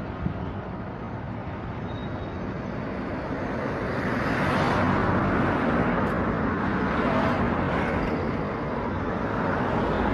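Road traffic: motor vehicles passing on the street, the noise of engines and tyres swelling louder from about a third of the way in.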